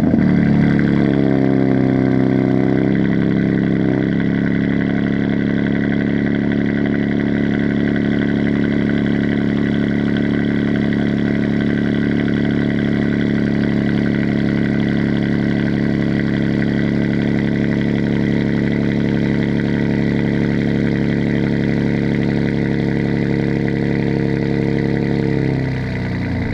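BMW M3 G80's 3.0-litre twin-turbo S58 straight-six cold-starting through an OPF-delete H-pipe with the mid silencer removed. It flares on catching, settles over the first few seconds into a steady high cold idle, and its pitch drops lower near the end as the idle comes down.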